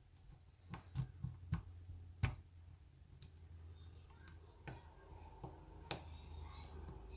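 A BiLock lock being picked: a string of small, irregular metallic clicks as the pick and tension tool work the lock and its parts set, the loudest a little past two seconds and near six seconds.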